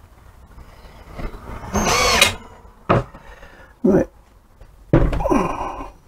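Ryobi 18V cordless drill driver run in about four short bursts, driving screws into wood; the loudest burst comes about two seconds in, and the motor's pitch drops as some bursts stop.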